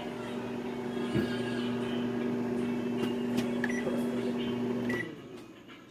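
Samsung microwave oven running with a steady hum while a bag of popcorn cooks, with scattered pops of the kernels. Two short beeps from the control panel, about three and a half and five seconds in; after the second the hum winds down as the oven is stopped.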